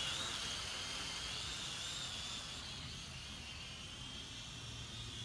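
Propel Maximum X11 quadcopter's motors and propellers whining in flight, a steady high whine that wavers slightly in pitch and grows gradually fainter.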